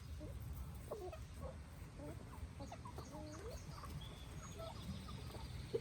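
Backyard chickens clucking, many short calls overlapping, over a steady low rumble.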